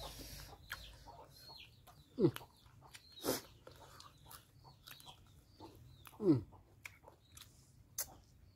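Eating by hand, with scattered wet mouth clicks and smacks of chewing and finger-licking. Over it, a short animal call falling steeply in pitch sounds twice, about two seconds in and again about six seconds in.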